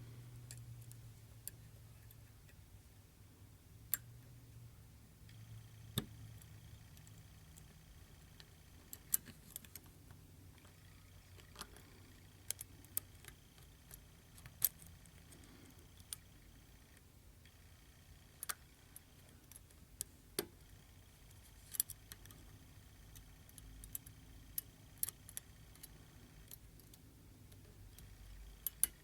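Small metallic clicks and taps of a tiny hook lock pick and tension wrench working the sliders inside a Bell slider lock, coming at irregular intervals over a faint low hum.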